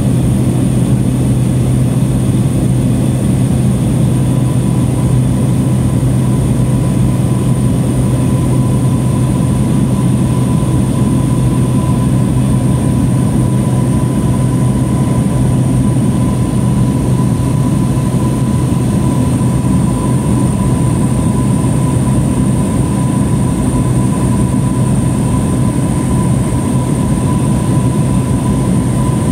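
Steady drone of a light propeller plane's engine and propeller heard from inside the cabin: a loud, unchanging low hum with a thin high whine above it.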